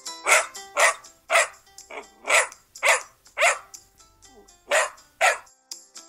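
Puppy barking in a quick run, about two barks a second, with a short break about four seconds in.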